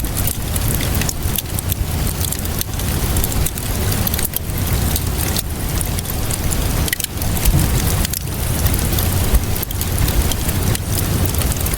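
Wood fire crackling in a fireplace: a dense, continuous run of small pops and snaps over a steady low rumble.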